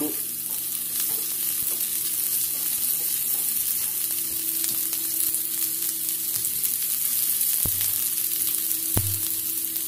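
Sliced red onions sizzling in hot oil in a non-stick wok as they start to fry, stirred with a spatula, with a couple of sharp spatula knocks against the pan in the second half. A faint steady hum sits underneath.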